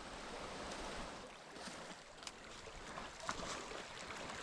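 Faint, steady rush of a small trout stream's flowing water, with a few light ticks.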